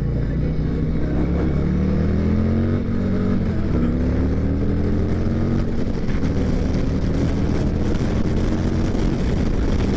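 Harley-Davidson Street Glide's V-twin engine being revved while standing, its pitch climbing, dropping back, then climbing again.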